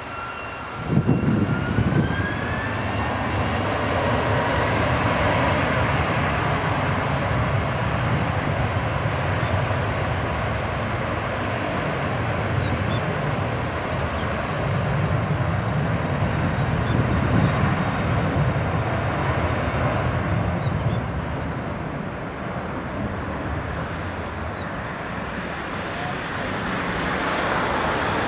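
A Boeing 737-800's CFM56-7B turbofan engines at takeoff thrust as the jet accelerates down the runway. A whine rises in pitch over the first few seconds, then a loud, steady engine noise holds.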